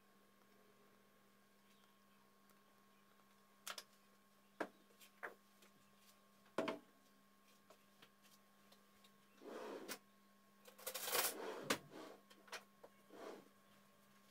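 Scattered sharp clicks and knocks over a faint steady hum, with two brief rustling bursts about two-thirds of the way in.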